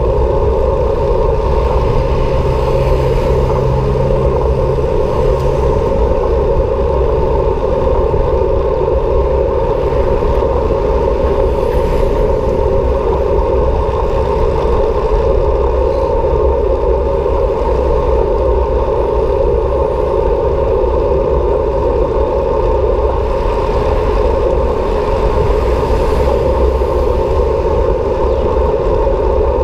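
Steady rush of wind and road noise picked up by a camera riding along on a moving bicycle, with a constant low rumble underneath.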